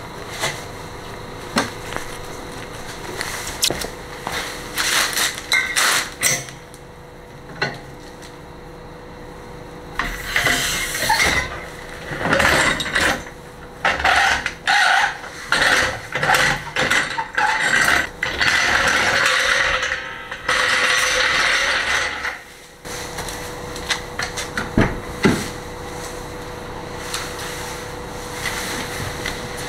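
Hand tools working on the bolts and hangers of a stainless aftermarket exhaust: scattered metallic clicks and knocks, then a busier stretch of rapid clicking and scraping in the middle, then a few more knocks.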